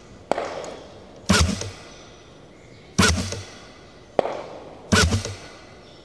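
Shots fired at a distant target, one loud sharp report about every two seconds, three in all, each with a brief tail. A single sharp knock follows about a second after a shot, the projectile striking the target downrange.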